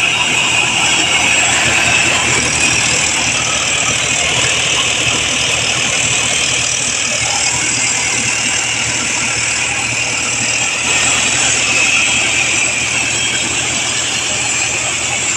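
Mahindra 585 DI tractor's diesel engine running steadily with a tractor-mounted air compressor, a constant loud hiss over the low engine hum.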